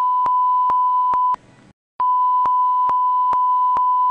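Censor bleep blanking out swearing: a steady, high single-pitched beep tone in two long stretches, broken by a short gap about a second and a half in, with faint regular clicks running through it.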